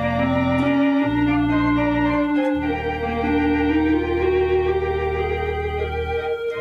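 Conn 650 electronic theatre organ playing: held chords and a moving melody line over sustained pedal bass notes, which change about one and two and a half seconds in and then hold.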